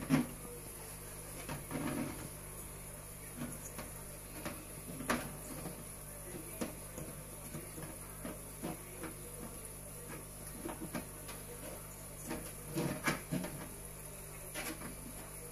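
Scattered light clicks and knocks of a hand handling a plastic aquarium lamp hood fitted with power-LED boards and finned aluminium heatsinks, over a steady low hum.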